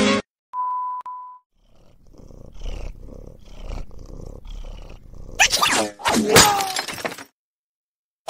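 A short steady electronic beep, then a guinea pig purring: a low rumble in rhythmic pulses with faint squeaks. About two-thirds of the way through, a louder burst of harsh noise with falling squeal-like pitches, which stops abruptly.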